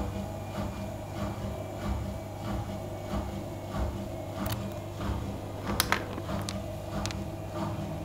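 Gorenje WA65205 front-loading washing machine turning its drum with a king size duvet inside: a steady motor hum with a soft rhythmic thump about twice a second. A few sharp clicks come near the middle, the loudest a quick pair.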